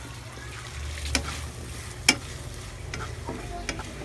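Wooden spatula stirring and scraping through meat frying in a wok, the food sizzling, with several sharp knocks of the spatula against the pan, the loudest about two seconds in.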